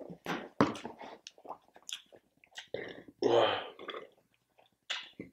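Close-miked eating sounds: irregular chewing and mouth noises, with a louder half-second throaty mouth sound about three seconds in.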